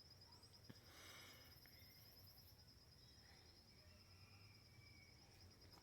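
Near silence, with a faint steady high-pitched insect trill throughout, typical of crickets.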